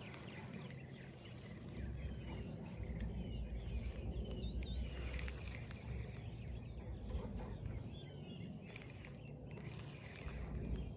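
Outdoor ambience: birds chirping in many short calls over a steady high-pitched hiss and a low rumble.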